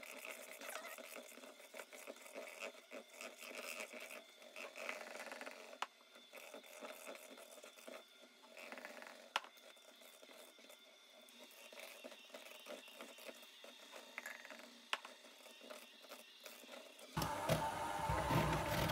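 KitchenAid electric hand mixer running faintly, its beaters working powdered sugar into a thick icing, with a few sharp clicks along the way. The sound fills out and gets louder near the end.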